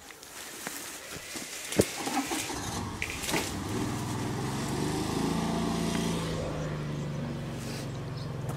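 A car engine running steadily, coming in a couple of seconds in and growing louder, the car hitched by a rope to a hedge it is about to pull out. A single sharp click comes just before the engine is heard.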